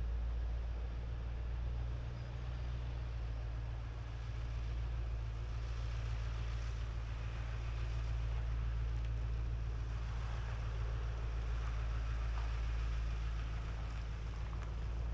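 Pickup truck carrying a slide-in truck camper driving slowly along a forest track, its engine a steady low hum.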